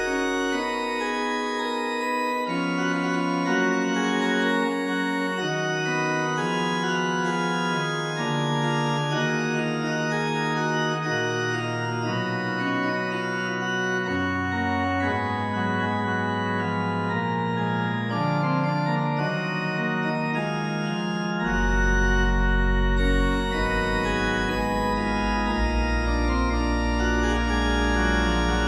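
Slow organ music: long, sustained chords that change gradually. Deep bass notes come in about three-quarters of the way through.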